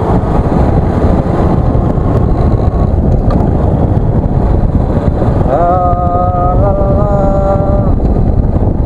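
Wind rushing over the microphone and a Bajaj Pulsar 135 LS's single-cylinder engine running while the motorcycle is ridden. About five and a half seconds in, a pitched tone rises and holds for about two seconds.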